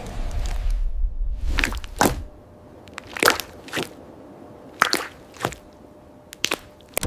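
A string of sharp, crunchy clicks, roughly one or two a second, over a low rumble that fades out after about two seconds.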